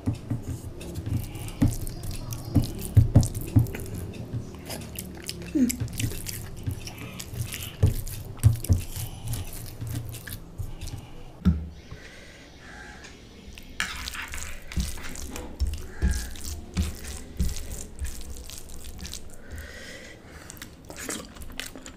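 Bare fingers squishing and mixing soft rice with mashed toppings on a plate: a steady run of wet, sticky clicks and smacks.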